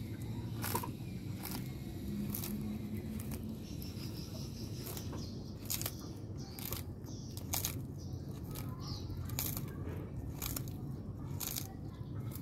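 Sulcata tortoise biting and tearing fresh leaves, a short crisp crunch every half second to a second. Faint bird chirps in the background.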